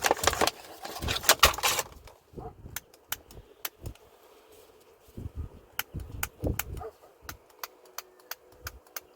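Packaging being torn open by hand, a dense ripping and rustling for about the first two seconds, then scattered sharp clicks and knocks of handling.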